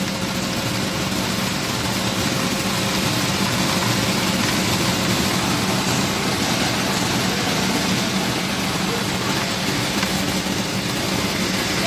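Plastic sorting machine running: a steady hum under a dense, even noise as plastic flakes stream out of its chute into a plastic crate.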